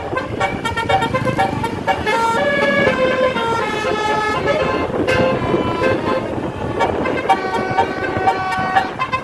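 Bus 'telolet' basuri multi-tone horn playing a tune: several horn notes sound together and change pitch in short steps, over steady background noise.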